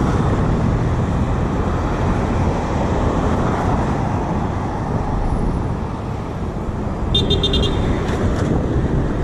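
Road traffic streaming past, a steady rush of tyres and engines. About seven seconds in, a short car horn honk sounds.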